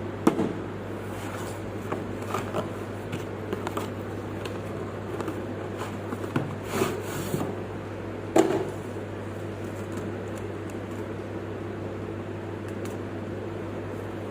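Handling noises from opening a tripod's packaging: scattered clicks, taps and short rustles of box and wrapping, busiest in the first nine seconds with a louder rustle around the middle. A steady low hum runs underneath throughout.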